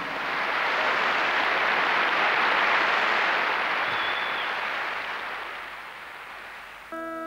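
Audience applauding, building over the first second and then slowly fading. Near the end it cuts suddenly to the steady sustained chord of uilleann pipe drones.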